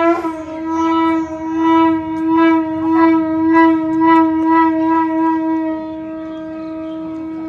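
A single long horn-like note held at one steady pitch, swelling and dipping about twice a second at first, then held evenly near the end.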